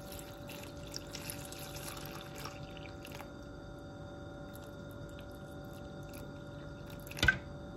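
Water poured from a plastic pitcher into a stainless steel pot, running faintly onto corn cobs laid on their husks in shallow water, with a faint steady hum behind it. A short knock comes near the end.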